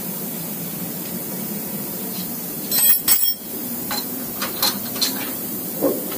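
Metal tools clinking on steel clamping hardware as a workpiece is clamped down on a CNC milling machine table: a sharp ringing clink about three seconds in, then several lighter taps, over a steady machine-shop hum.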